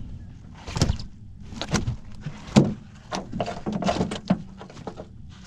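Irregular knocks and thuds on a small boat's deck, about a dozen, the loudest about two and a half seconds in, as a freshly caught flathead is handled on the measuring mat.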